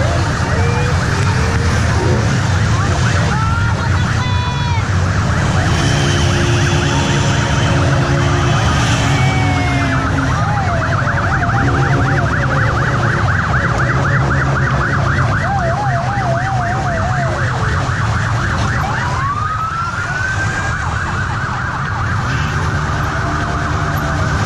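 Police motorcycle sirens sounding, several overlapping, with wailing glides and a fast warbling yelp in the middle and a long rising wail later on. The motorcycle engines run steadily underneath.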